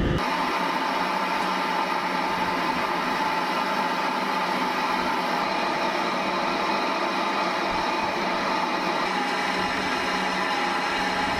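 Steady machinery hum from a raised missile launcher and its equipment, with several steady whining tones and no change in pitch or level.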